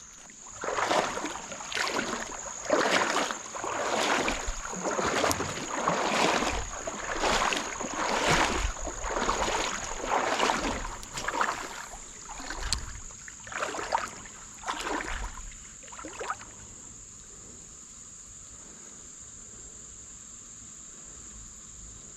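Water swishing in regular strokes about once a second, from movement through a shallow creek; the strokes stop about two-thirds of the way in. A steady high drone of insects runs underneath throughout.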